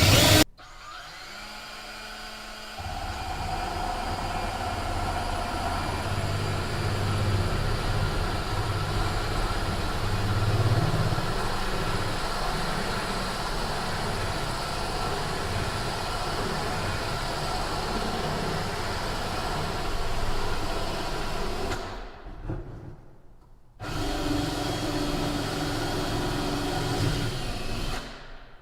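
Cordless drill running a 1/2-inch diamond-tipped bit, drilling through a glass lid kept cool under water. It runs gently for the first couple of seconds, then steadily harder, stops for about two seconds near the end, runs again, and stops.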